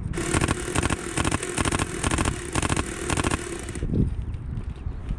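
Airsoft gun firing full-auto in a string of short, rapid bursts, with a steady whine beneath. The firing stops about three and a half seconds in.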